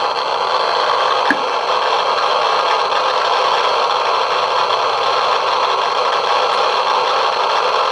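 Eberline E-140 Geiger counter with a pancake probe clicking so fast that the clicks run together into a loud, steady crackling hiss. This is a high count rate, about 20 millirem per hour, from the depleted uranium in the glaze of orange-red Fiesta Ware.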